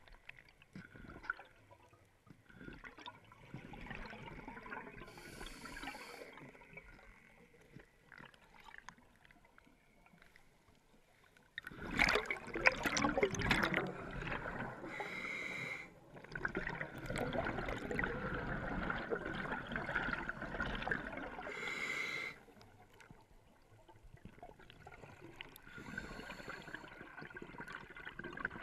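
Scuba diver breathing through a regulator underwater, heard through the camera housing: short hissing breaths and stretches of bubbling exhalation, loudest in two long bubble bursts in the middle.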